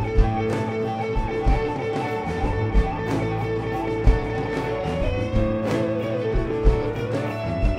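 Live rock band playing an instrumental on electric guitars, keyboard and drums. A lead line holds one long note that bends and wavers a little past halfway, over the chords and a steady kick drum.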